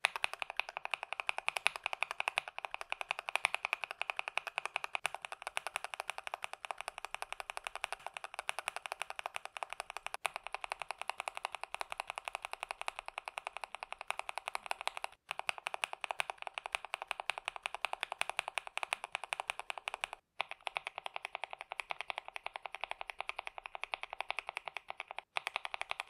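Rapid typing on a KBD67 Lite R3 mechanical keyboard with ASA-profile keycaps, fitted in turn with different budget linear switches (JWICK Ultimate Black, Gateron Yellow Pro KS-9, Akko CS Radiant Red among them): a dense, continuous clatter of keystrokes. Brief breaks come about every five seconds where the switch changes.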